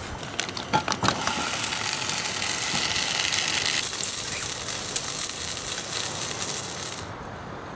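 Hot dog sausages frying, with a loud sizzle and a few sharp pops in the first second or so. The sizzle cuts off abruptly near the end.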